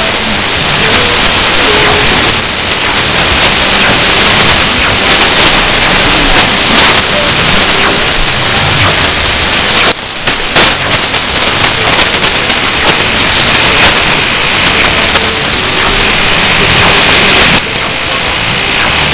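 Shortwave radio static from a WiNRADiO WR-G31DDC receiver tuned to 4810 kHz in upper sideband: a steady, loud rushing hiss with faint traces of a weak, unidentified station underneath. The noise dips briefly about ten seconds in.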